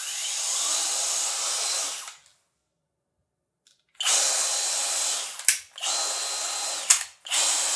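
Hoto brushless cordless drill spinning free in short runs. A high whine rises as it spins up and then holds steady, and the runs are broken by a pause and by sharp clicks. It is run in its 370 RPM screw mode and its 4900 RPM drill mode, which sound much the same.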